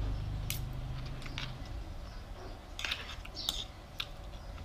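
Metal spoon and fork clinking and scraping against a bowl of rice during eating: a handful of scattered light clinks, a small cluster of them about three seconds in.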